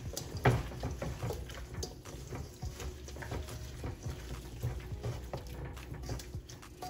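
Gloved hands working raw chicken wings in a stainless steel bowl, rubbing in seasoning with wet squishing and slapping sounds and irregular light knocks against the bowl.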